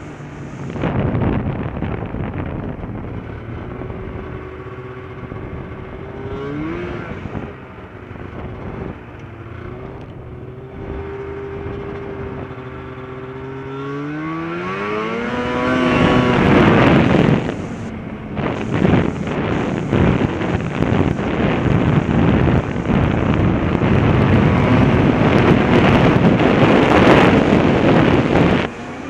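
Snowmobile engine running at low speed with a steady hum, then rising in pitch as it speeds up about fourteen seconds in. It then runs loud at speed with wind rushing over the microphone.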